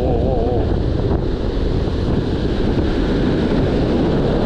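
Wind buffeting the microphone over the steady wash of breaking surf, with a brief wavering tone in the first half-second.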